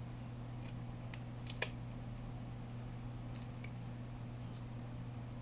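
Scattered faint clicks and taps of small tools and parts being handled while working inside a smartphone, irregularly spaced, over a steady low hum.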